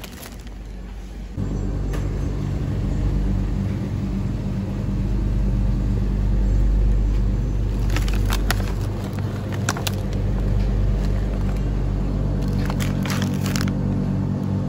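A steady low rumble with a hum under it, louder from about a second and a half in, with short crinkles and clicks of plastic food packaging being handled around the middle and again near the end.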